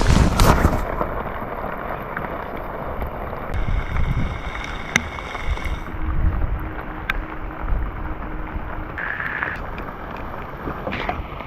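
Rain and wind, with gusts rumbling on the microphone and a few sharp ticks of drops.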